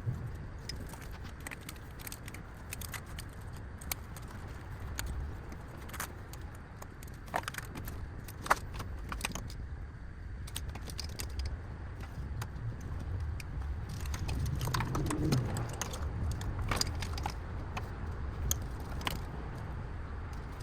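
Scattered light clicks and clinks of small hard objects being handled, irregularly spaced, over a steady low rumble; one sharper click stands out about eight seconds in.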